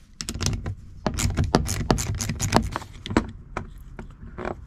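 Irregular clicks and metal clinks as the 11 mm nuts on a Wilson metal CB antenna mount bracket are loosened with a small ratchet and the bracket's plates and bolts are handled.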